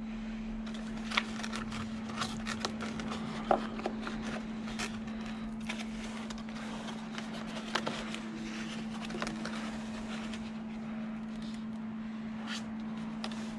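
Handling noises from work on a model at a bench: scattered light clicks, taps and scrapes, with a few sharper knocks, over a steady hum.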